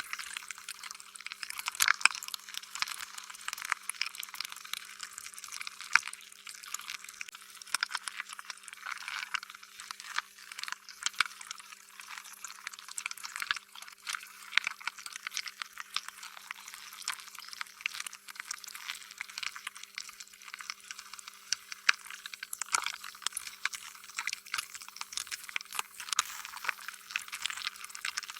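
Slime being squished and stretched: a continuous run of squishy, sticky clicks and small pops, with a few louder pops standing out, about 2, 6 and 23 seconds in.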